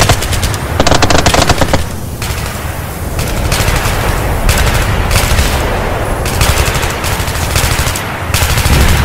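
Machine-gun fire in repeated short bursts, about eight in all, each a rapid run of sharp shots, over a steady low rumble.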